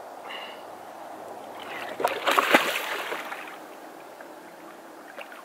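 Water splashing in a landing net holding a musky at the boat's side, a burst about two seconds in that lasts about a second and fades, over a soft steady lapping of water.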